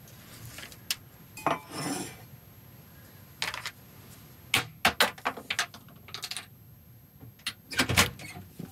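Hard candies and throat lozenges clattering in a container: a string of irregular clicks and short rattles, a few at a time, with no motor running.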